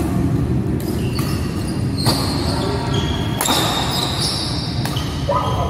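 Badminton doubles rally: rackets hitting the shuttlecock every second or so, with players' footwork on the court, in an echoing hall over a steady low rumble.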